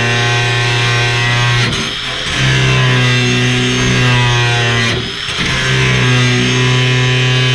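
Background music: sustained electric guitar chords held for long stretches, with two short breaks where the chord changes, about two seconds and five seconds in.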